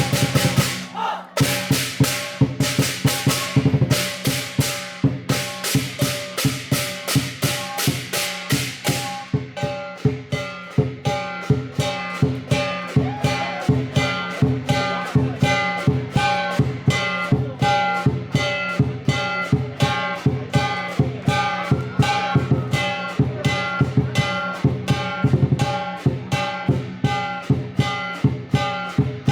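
Lion dance percussion music: a drum beats throughout, with loud clashing strokes for about the first nine seconds, then an even beat of about two strokes a second with ringing metallic tones.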